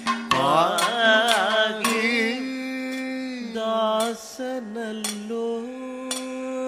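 Kathakali song sung in the Carnatic manner: a male singer draws out a vowel with wavering ornaments, then holds one long steady note from about two and a half seconds in. Sharp percussion strokes come about once a second underneath.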